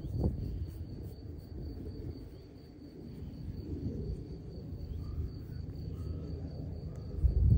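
Steady high-pitched insect trill over low rumbling noise from the phone microphone being handled, with a few faint short chirps in the second half.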